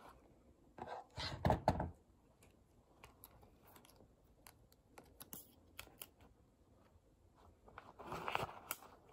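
Hands handling a fabric pencil case and packs of plastic sticky index tabs: a burst of rustling and knocks about a second in, scattered light clicks and taps, then more rustling of the fabric and mesh near the end as the tabs are slid back into the pocket.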